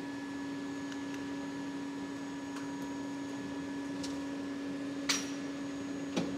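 Steady machine hum with a fixed pitch, and a few faint clicks and one sharper tick about five seconds in as a dial bore gauge is handled.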